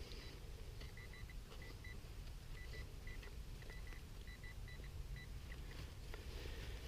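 Metal detector giving short high beeps at one pitch, in irregular runs and pauses, as it is worked over a buried target, over a steady low rumble.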